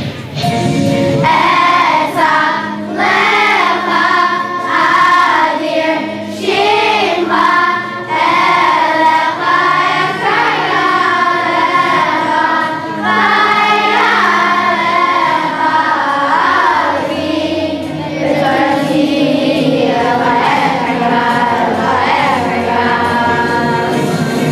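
Children's choir singing a song.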